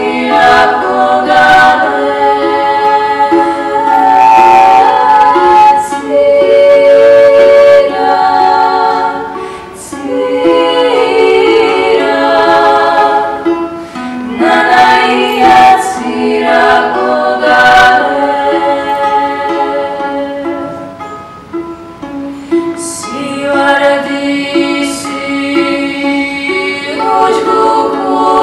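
Female vocal ensemble singing a Megrelian folk song in Georgian multi-part harmony, with a low held note under the upper voices and a panduri plucked along. The voices sing long sustained phrases that break off briefly a few times.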